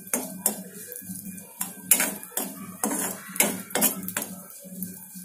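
Metal spatula scraping and knocking against a kadai in a dozen or so irregular strokes, stirring raisins frying in ghee.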